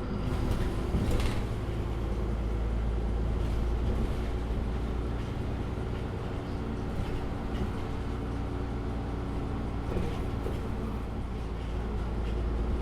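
Inside a MAN Lion's City city bus under way: the engine drones steadily over a heavy low rumble, with a few brief rattles from the cabin near the start and again around ten seconds in.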